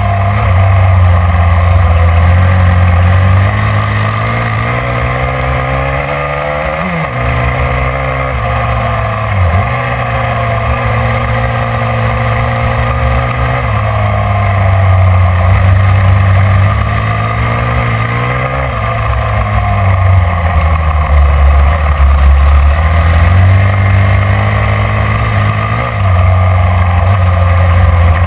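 Snowmobile engine running hard at speed, its revs rising and falling as the throttle is worked, with two brief sharp drops about seven and nine seconds in.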